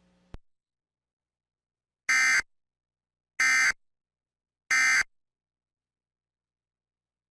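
Emergency Alert System End of Message data signal: three short, identical bursts of raspy digital tone about a second and a half apart, closing the severe thunderstorm warning. A brief click comes just before them.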